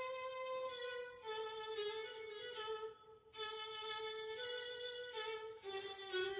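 Violin playing a slow melody of long held notes, in short phrases with brief breaks between them.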